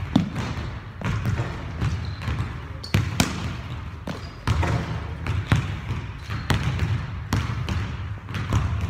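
Basketballs being dribbled on a hardwood gym floor, a run of sharp, irregularly spaced bounces.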